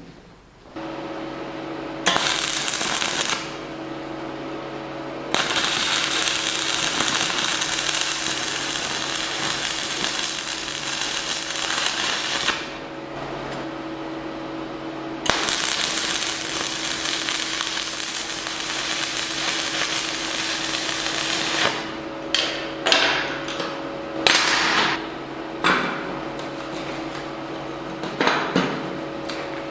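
Electric arc welding on steel: the arc crackles through two long beads of about seven and six seconds, then a run of short tack welds near the end, over the welding machine's steady hum.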